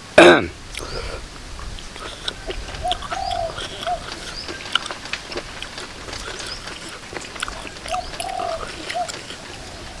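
A dove cooing, the same short three-note phrase twice, about five seconds apart, over scattered light clicks and crunches. It opens with the tail of a loud exclamation.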